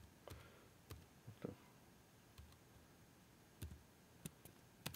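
Faint computer keyboard keystrokes: about eight single, irregularly spaced key clicks while a short command is typed.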